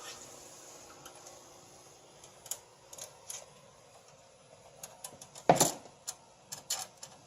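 Irregular small metallic clicks and taps of a screwdriver and screw working against the metal expansion-slot bracket of a PC case, fastening a graphics card in place. The clicks grow more frequent in the second half, with the sharpest one about five and a half seconds in.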